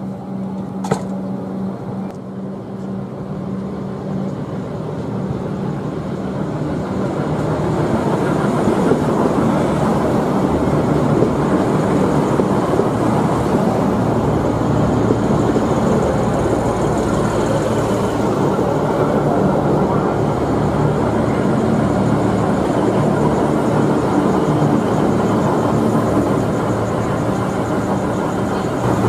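V/Locity diesel railcar set running beside the platform, its diesel engines getting louder from about eight seconds in and then holding a steady, heavy running noise.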